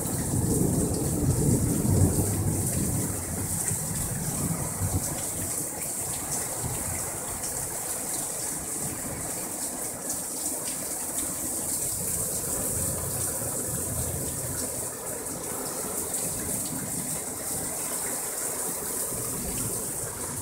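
Heavy thunderstorm rain pouring steadily off the eaves and pelting the roofs. There is a stronger low rumble in the first few seconds.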